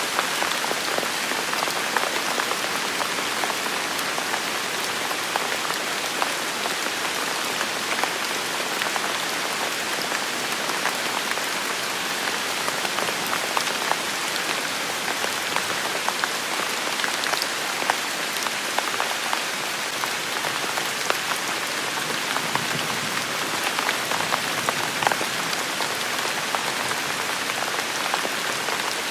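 Steady rain falling on a hard surface, a constant hiss with many individual drops ticking sharply through it.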